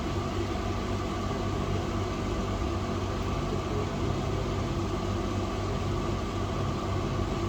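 Steady machine hum over a hiss.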